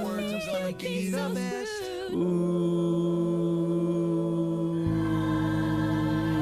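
A voice singing a melody, then holding one long steady note from about two seconds in, with a low tone joining under it near the end.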